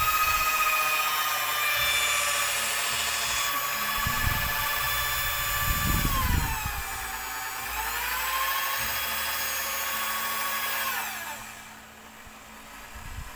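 Electric drill with a mixing rod stirring a bucket of thick homemade dishwashing liquid soap: a steady motor whine that dips in pitch about six seconds in, climbs back, and stops about eleven seconds in.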